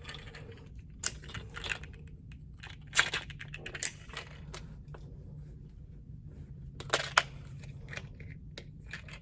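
Scattered small metallic clicks and taps of .22 Magnum cartridges being loaded into the five-shot cylinder of a North American Arms mini revolver, about six separate clicks over a faint steady hum.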